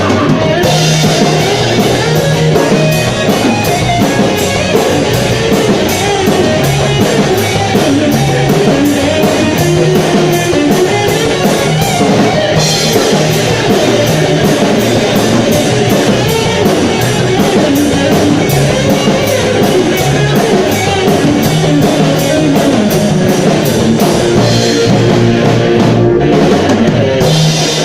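A live rock band playing a song: drum kit and guitars, loud, with a steady drum beat throughout.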